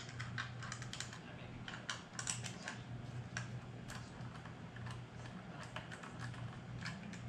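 Small precision screwdriver working screws on a RED Epic-MX camera body: a run of light, irregular metal clicks and ticks, over a steady low hum.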